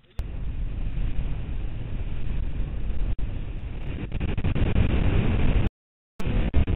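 Wind buffeting a helmet-mounted camera's microphone over the running of a dual-sport motorcycle on a gravel track, starting abruptly with a few sharp clicks. It drops out for about half a second near the end.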